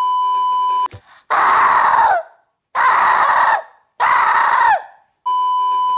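A steady test-tone beep, then three short screams in a row, each about a second long and ending with a downward bend in pitch, then the beep again.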